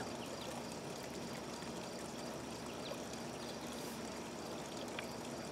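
Steady, even rushing outdoor noise with a few faint, short, high bird chirps scattered through it.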